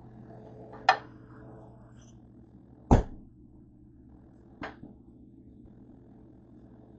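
Three sharp knocks of cookware or utensils: the first about a second in, the loudest at about three seconds, and a lighter one near five seconds, over a steady low hum.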